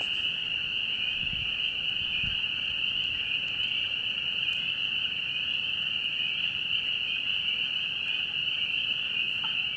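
Spring peepers calling in a dense chorus at a breeding pool, their many high peeps blending into one continuous high-pitched ringing.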